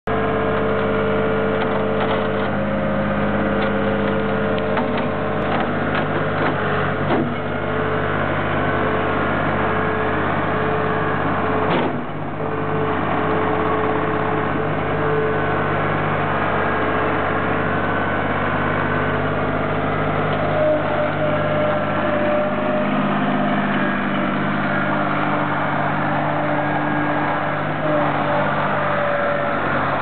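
John Deere 240 Series II skid steer's mechanically injected three-cylinder diesel engine running steadily as the machine works, with a single knock about twelve seconds in.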